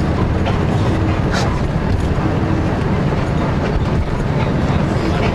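Steady, loud low rumble of a moving vehicle heard from on board, with no clear changes.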